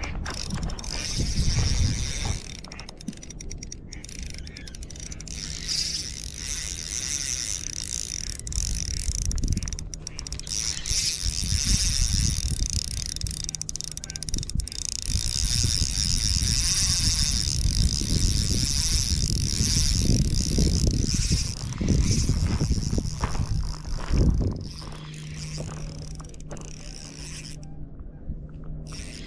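Spinning reel being cranked to retrieve a jig, its gears and bail giving a steady whir over a low rumble. The cranking stops briefly near the end.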